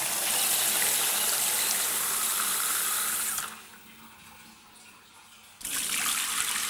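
Cold water running hard from a sink tap into a plastic measuring jug, a steady rush. It cuts off about three and a half seconds in and starts again abruptly about two seconds later.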